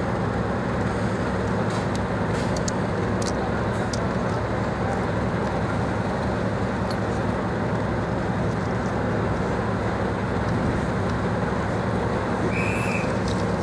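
Class 55 Deltic and Class 37 diesel locomotives idling at a standstill, a steady low engine hum. A brief high tone sounds near the end.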